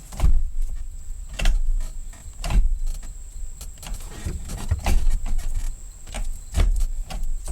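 Gear lever of a T50 five-speed gearbox fitted with a T3 short shifter being moved by hand: a sharp clunk or knock every second or so as it is worked through the gates.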